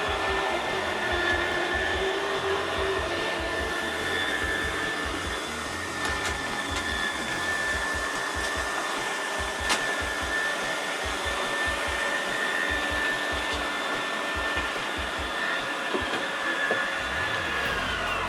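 Electric slide-out motor of a 2024 GeoPro 20BHS travel trailer running with a steady whine as the slide room extends, winding down and stopping near the end.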